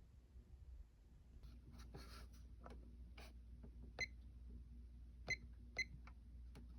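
Faint light metallic clicks and clinks, three sharper ringing ticks among them past the middle, over a low steady hum: a ceiling fan's bead pull chains tapping against the metal switch housing.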